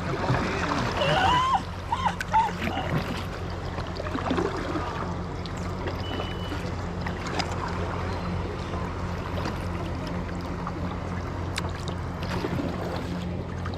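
Water noise around a kayak paddling down a river, with a few light knocks, over a steady low hum. A voice is briefly heard in the first couple of seconds.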